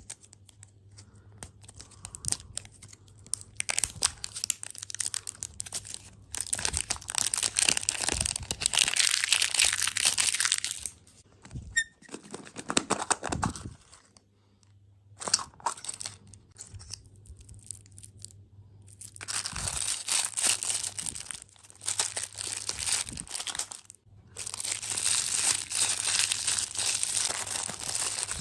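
Plastic food packaging being handled: crinkling and tearing in several long stretches a few seconds each, with short pauses between.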